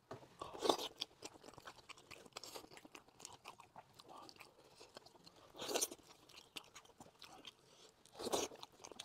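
Eating sounds from a braised sheep head in chili sauce: meat pulled apart with gloved hands, then bitten and chewed. There are scattered small clicks, with louder bursts about a second in, midway, and near the end.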